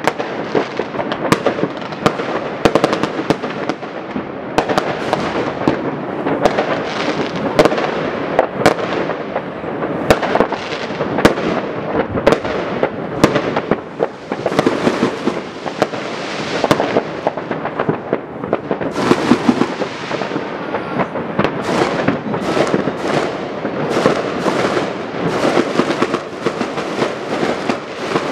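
Many fireworks and firecrackers going off at once: a dense, unbroken crackle of bangs and pops, with sharper, louder reports standing out many times a second.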